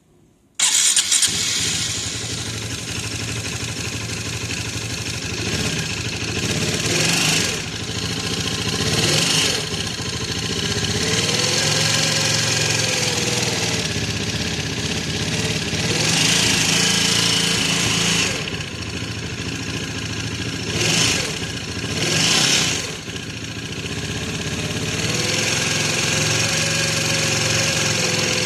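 Kymco Xciting 400 scooter engine, running with its CVT removed, starts about half a second in, then idles and is revved several times. The run is meant to expose an abnormal noise from the engine itself.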